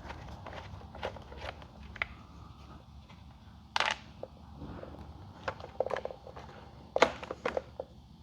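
Light scattered clicks and rattles of a Phillips screwdriver and small screws being worked out of a plastic motorcycle tail section, with sharper clicks about four seconds in and again around seven seconds.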